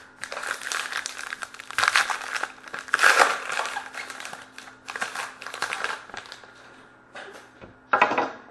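Wrapper of a 2012-13 Panini Rookie Anthology hockey card pack crinkling as it is opened and the cards are pulled out. It comes in crackling bursts, loudest about two and three seconds in, with a last short burst near the end.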